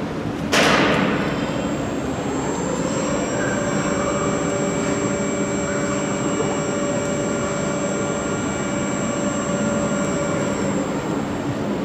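Overhead crane carrying an electric locomotive body, its electric drive giving a steady whine that comes up to pitch and holds, then stops near the end. A sudden burst of noise comes about half a second in.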